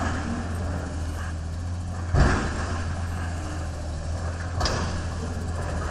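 Excavator's diesel engine running with a steady low rumble at a demolition site, with two sudden crashes of demolition rubble, the louder one about two seconds in.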